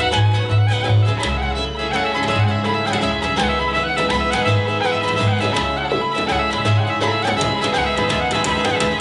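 Folk band music: a fiddle playing a melody over a rhythmically strummed guitar and a steady bass line.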